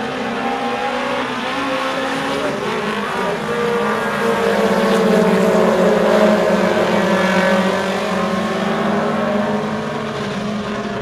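Super Stock four-cylinder race cars running laps on a dirt oval, engines rising and falling in pitch. The sound swells as cars pass close, about four to seven seconds in, then eases back.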